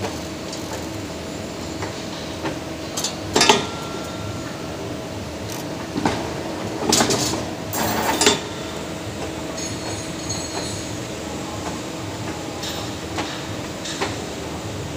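2D CNC wire bending machine running: a steady electric hum from its drive, broken by short metallic clatters and scrapes as the steel wire is fed through the straightening rollers and bent, the longest burst a little past halfway.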